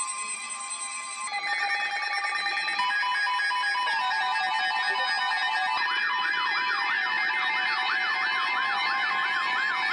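Layered electronic tones building up, with new steady tones joining over the first few seconds. About six seconds in, a siren-like tone joins, sweeping rapidly up and down about three to four times a second.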